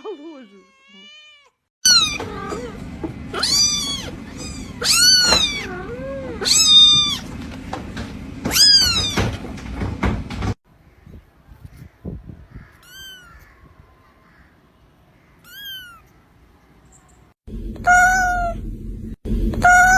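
Kittens meowing: a string of high meows that rise and then fall in pitch, heard in separate clips that cut in and out abruptly. The loudest stretch, lasting most of the first half, has about six meows over a steady low hum; a quieter stretch follows with two faint meows, then loud repeated meows return near the end.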